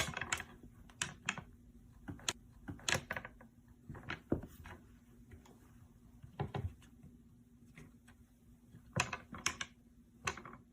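Irregular light taps, clicks and knocks, the sharpest right at the start, over a faint steady hum.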